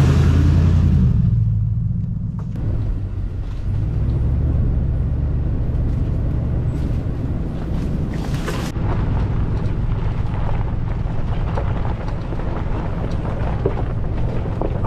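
Toyota LandCruiser 100 Series four-wheel drive running as it drives, a steady low engine drone with rumble.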